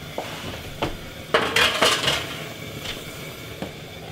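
Metal roasting tin clanking and scraping as it is slid onto the wire shelf of a gas oven, with a cluster of clatters in the middle, then the oven door being pushed shut.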